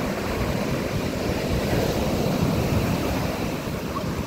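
Sea surf breaking and washing up a sandy shore in a steady rush, with wind buffeting the microphone.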